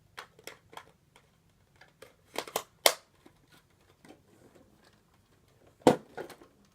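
Hard plastic parts of a toy Nerf blaster clicking and knocking together as an attachment is pushed on: a run of sharp, irregular clicks, the loudest about three seconds in and another near the end.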